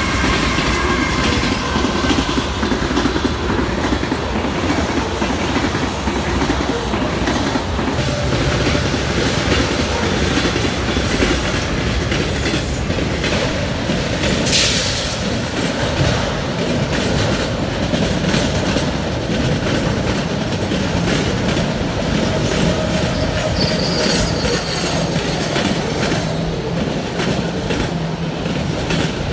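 A freight train rolling past at close range: CN diesel locomotives at first, their engine tone fading within the first couple of seconds, then autorack cars with steady wheel rumble and clatter over the rail joints. Brief high wheel squeals come about halfway through and again later on.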